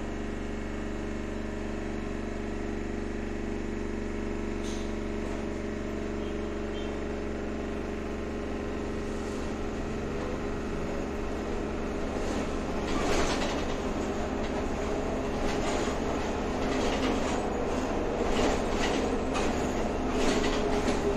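Tram heard from inside the passenger car while moving: a steady running hum at first, then from about halfway through louder rolling noise with repeated rattling and clatter from the car over the track.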